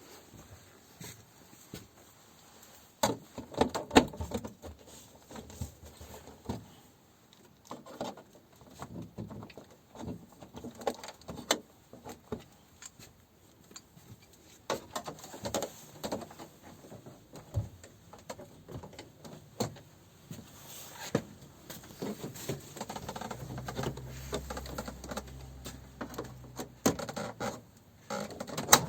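Scattered clicks, knocks and rattles of objects being handled, the loudest about three to four seconds in and near the end, with a low hum for a few seconds near the end.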